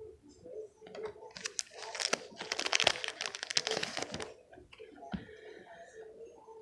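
Packaging being handled and crinkled during an unboxing, with a dense burst of crinkling from about a second and a half in that lasts some two and a half seconds, then quieter rustling.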